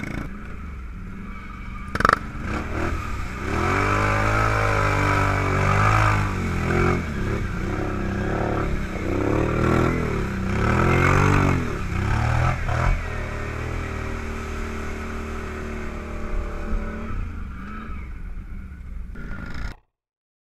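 Can-Am ATV engine revving hard and easing off again and again as the quad plows through a deep mud hole, with a sharp knock about two seconds in. It then settles to a steadier run before the sound cuts off abruptly near the end.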